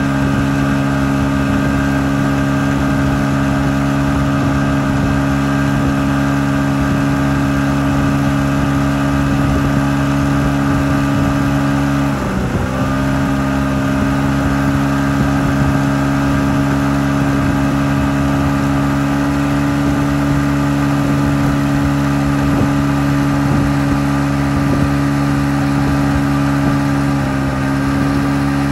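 Tow boat's engine running at a steady speed, with a brief drop and recovery in pitch about twelve seconds in and a smaller one near the end.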